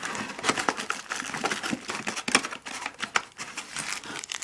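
Plastic packaging crinkling and rustling as small electronics accessories are handled, with many small irregular clicks and taps.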